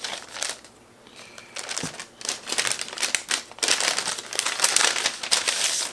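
Paper rustling and crinkling as folded sheets are handled and pulled out of an envelope, in irregular bursts that grow louder in the second half.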